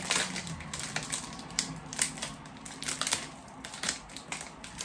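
Clear plastic packaging crinkling and crackling in irregular bursts as it is pulled open by hand.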